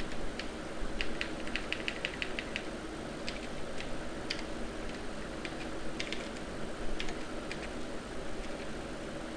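Computer keyboard keys clicking as a filename is typed: a quick run of keystrokes about a second in, then scattered single key presses, over a steady background hiss.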